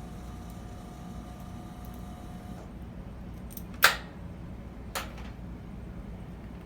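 Two sharp clicks about a second apart, the first much louder, over a steady low hum. A faint steady tone stops about two and a half seconds in.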